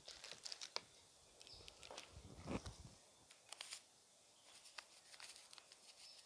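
Near silence with faint scattered clicks and crinkles from a plastic salt packet being handled.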